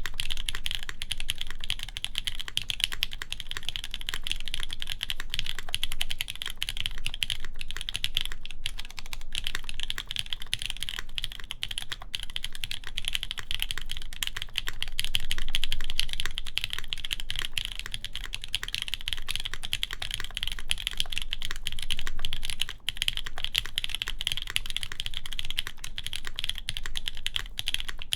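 Continuous fast typing on a Keycult No. 1 Rev. 2 mechanical keyboard with lubed JWicks linear switches, a polycarbonate plate and GMK keycaps: a dense, steady stream of key strokes.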